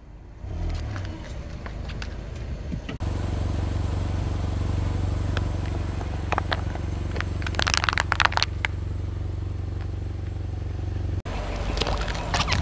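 A car's engine runs with a steady low hum as its tyre rolls slowly over plastic toys, giving crunching, crackling and snapping. First small plastic toy cars are crushed. Then a silicone pop-it fidget toy gives a dense burst of snaps about eight seconds in, and near the end a slime tub is squashed with more crackles.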